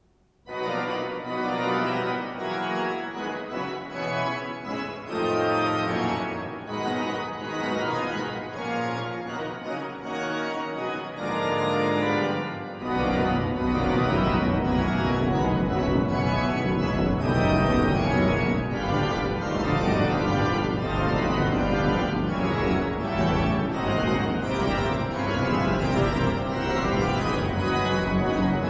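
Pipe organ of Durham Cathedral playing, starting from silence about half a second in with dense sustained chords; deep pedal bass comes in about thirteen seconds in and the full, loud organ sound carries on.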